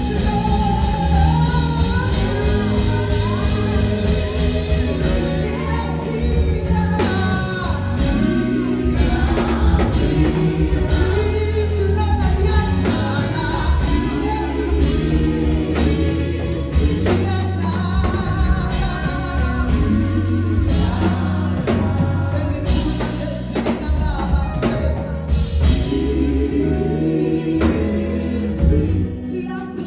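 Gospel song: a lead singer with vibrato over a band with drum kit and heavy bass.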